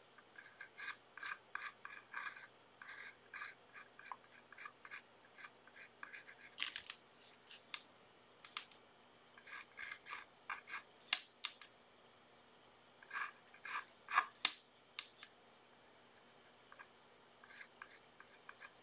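A small paintbrush scrubbing and dabbing on paper: short scratchy strokes, some single and some in quick runs of several.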